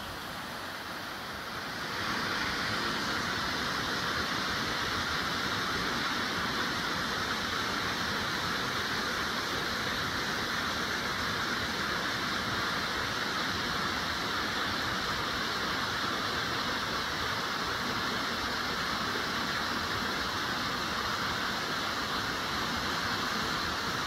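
Steady rushing of a forest waterfall and the rocky creek below it, growing louder about two seconds in.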